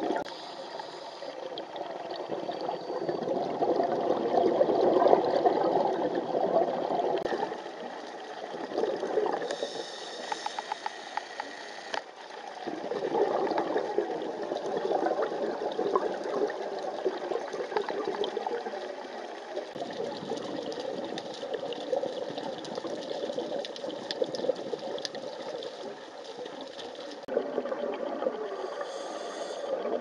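Underwater scuba breathing through a regulator: bubbly, gurgling exhalations lasting several seconds, three times, with quieter stretches and a short high hiss between them.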